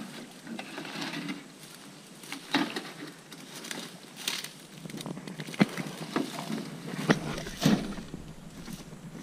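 A large rusty metal road sign dragged through dry grass and stalks on a riverbank: irregular rustling and scraping, with a few sharp knocks from about five seconds in.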